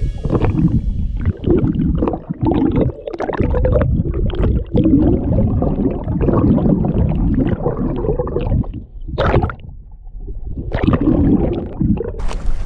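Muffled water rushing and gurgling, heard through a submerged camera's housing; low-pitched and uneven, surging and easing, with a short lull about ten seconds in.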